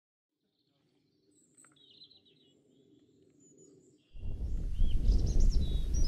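Small birds singing in short high chirps and trills, faint at first. About four seconds in, a loud low rumble of wind on the microphone cuts in, and the birdsong carries on over it.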